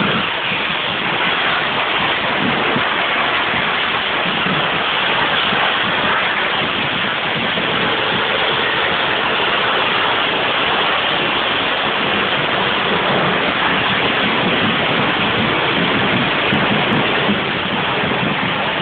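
Espadas (hand-made gunpowder firework tubes) burning, a loud continuous rushing hiss with no breaks.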